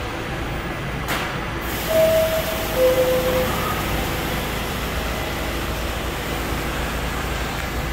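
R68A subway car's door-closing chime: two descending tones, a higher one about two seconds in and a lower one just after, over the steady hum of the train standing in the station. A short click comes about a second in.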